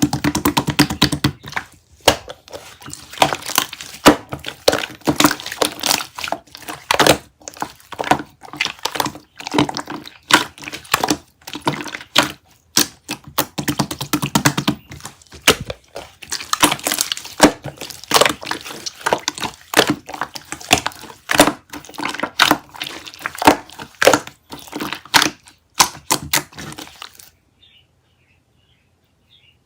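Chocolate-ice-cream-themed slime being pressed and squeezed by hand, giving dense, irregular crackling and popping that stops suddenly near the end.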